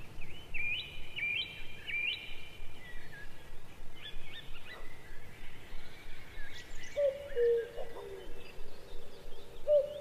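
Birds chirping against steady outdoor background noise. One call, a quick upward-sweeping chirp, repeats several times at the start, and fainter chirps follow. A lower, drawn-out call sounds twice in the second half.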